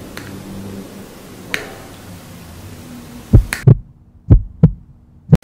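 Quiet room tone with a couple of faint clicks, then, a little past halfway, a run of about six loud, deep, heartbeat-like thumps, the loudest sound here. The thumps are a dramatic heartbeat sound effect laid over a close-up.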